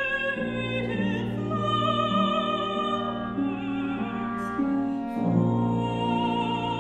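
Contemporary classical chamber music: a soprano singing with vibrato over sustained notes from cello, oboe, clarinet and harp. A steady low cello note holds underneath while the upper lines change pitch every second or so.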